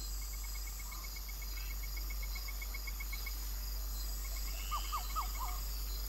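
Night-time chorus of insects: a steady high-pitched trilling, over which one caller gives a rapid pulsed chirp of about eight pulses a second. The pulsed call breaks off around the middle and comes back briefly, and a few short rising chirps sound near the end.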